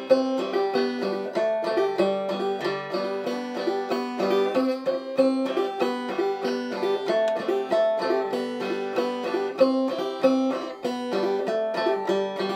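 An old-time tune played clawhammer style on an OME open-back banjo: a steady rhythm of plucked, ringing notes.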